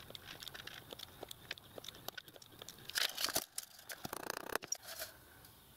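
Cutting a thin strip of 4 thou brass shim stock on a steel plate: scratchy scraping strokes and small metallic clicks, loudest a little past halfway.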